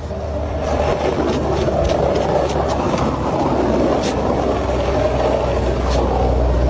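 Steady vehicle rumble and noise, swelling slightly near the end, with a few faint clicks.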